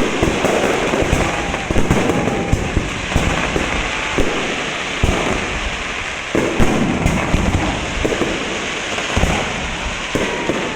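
Fireworks display going off continuously: rapid, overlapping bangs and crackling bursts with no break.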